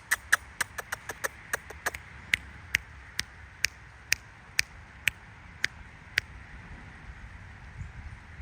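A series of sharp clicks, quick at first and then slowing to about two a second, stopping about six seconds in.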